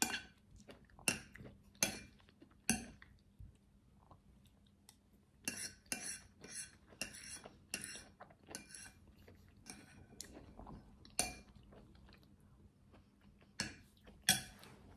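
Metal fork clinking and scraping against a ceramic plate, in a string of short sharp clicks, with close-up chewing in between.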